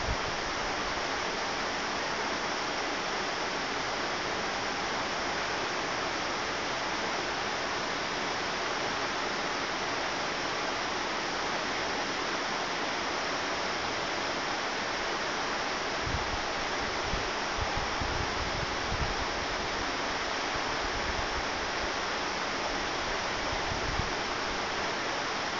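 Mountain stream rushing steadily, a constant even roar of running water, with a few brief low rumbles about two-thirds of the way through.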